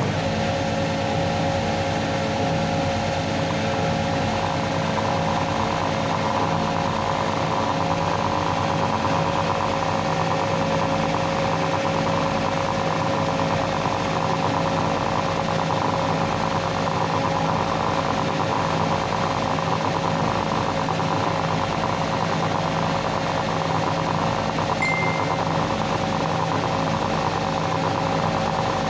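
Belt sander running steadily after being switched on: a constant motor hum with the rush of the moving sanding belt, unchanging throughout.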